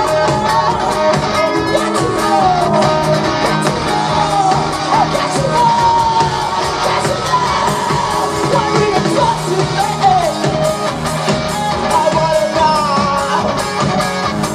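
Live rock band playing loudly, a singer's voice over electric guitars, keyboard and a steady drum beat, heard from within the crowd in a large concert hall.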